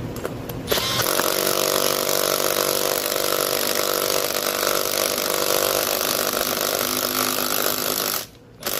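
3/8-inch cordless impact wrench hammering on a half-inch bolt through the centre of a wheel, drawing its bearing into the seat. It starts under a second in, runs steadily for about seven seconds and cuts off near the end.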